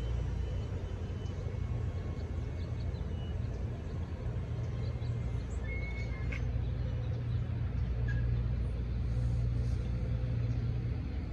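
Low, steady engine rumble of road vehicles, swelling slightly near the end, with a couple of faint short high chirps.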